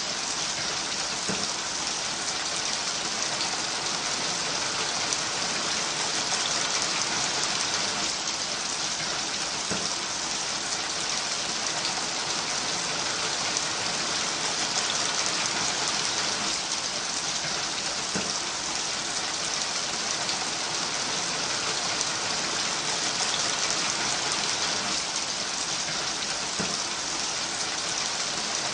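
Steady rain falling, a dense even hiss that stays at one level.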